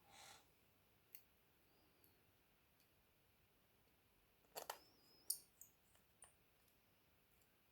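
Quiet bench with a few short, sharp clicks and taps from small tools and phone parts being handled. Two clicks come close together a little after the middle, and the loudest is about a second later.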